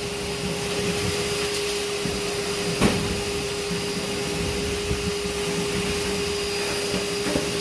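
Shop vacuum running steadily with a constant pitched whine, sucking up chips off the kennel floor. A single sharp knock about three seconds in.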